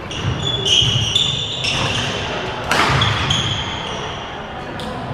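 Badminton rally on a wooden sports-hall floor: sneaker soles squeaking in short high squeals as players move, a few sharp racket strikes on the shuttlecock with the loudest about two and a half seconds in, and footsteps thudding.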